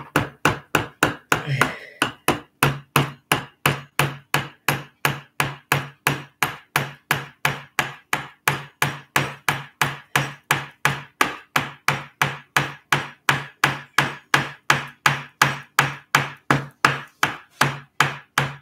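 Claw hammer tapping a nail into a small block of wood, nailing a wooden wing onto a model plane's body: light, even strikes, about three a second, kept up steadily.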